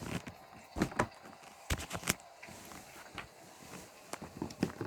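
Fidget toys being handled and put away: scattered light clicks and knocks, a few louder ones about a second in and again around two seconds.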